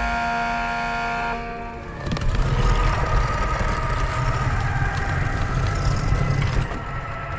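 A steady pitched tone sounds for about the first one and a half seconds. Then comes the heavy grinding rumble of a large stone millstone being pushed round by its wooden bar, which eases off near the end.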